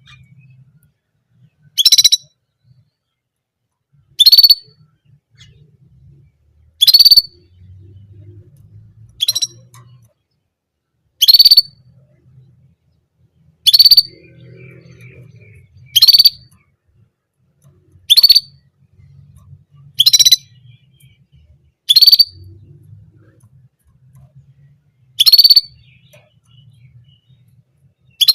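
German canary repeating one short, high call about every two seconds, about a dozen times.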